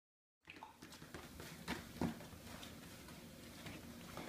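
Digital silence for about half a second, then faint room tone with soft rustling and a few light knocks, the loudest about 2 seconds in, from a small dog being held and handled in someone's lap.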